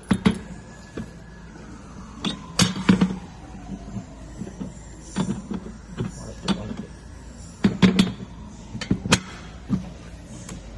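Irregular metallic clinks and knocks of tools and car alternator parts being handled and fitted together during reassembly.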